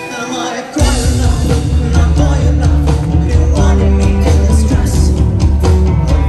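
Live rock band playing loud: a lone electric guitar, then about a second in the drums, bass and full band come crashing in together.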